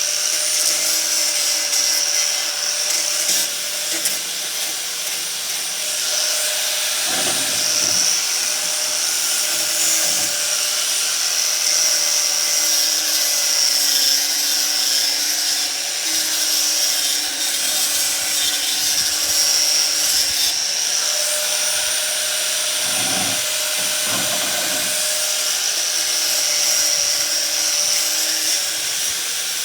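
4½-inch angle grinder fitted with a 50-grit sanding disc, running steadily while sanding and rounding the corners of a wooden table. It gives a constant whine over a loud hiss, and the tone shifts slightly as the disc is pressed against the wood.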